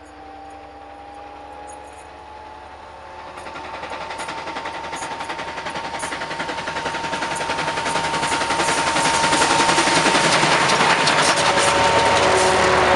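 Class 19D steam locomotive working hard with a heavy train, its exhaust beats coming in rapid succession and growing steadily louder as it approaches and passes close by. Near the end the locomotive has gone past and the train's coaches are running past close by.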